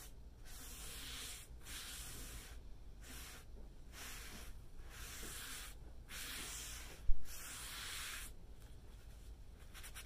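A rag rubbing over a freshly stained wood-grain tabletop in repeated strokes, wiping off oil-based stain. Each stroke is a swishing hiss of about a second, with short pauses between them. There is one short, loud thump about seven seconds in.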